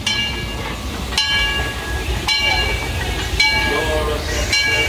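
Disneyland Railroad steam locomotive No. 4, Ernest S. Marsh, rolling slowly into the station with a low rumble, its bell ringing about once a second.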